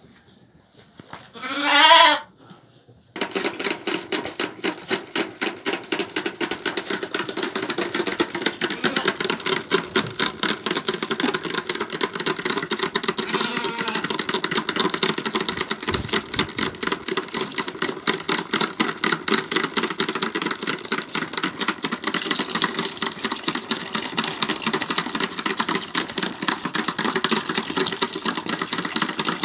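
A lamb bleats once near the start. Then several lambs suck on the rubber teats of a multi-teat bucket feeder, making a fast, steady run of sucking clicks.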